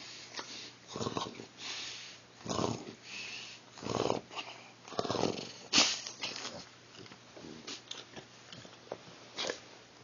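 An elderly Shar Pei dog making a string of short vocal noises, about one a second, with a sharper, louder one a little past halfway.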